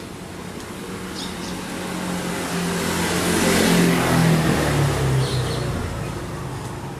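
A motor vehicle passing close by: engine and tyre noise swell to a peak about four seconds in, and the engine pitch drops as it goes past.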